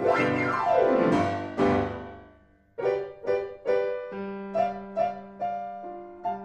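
Solo piano music: a few fast runs sweeping down the keyboard that die away to a brief pause, then a new phrase of separate struck notes over a held low note.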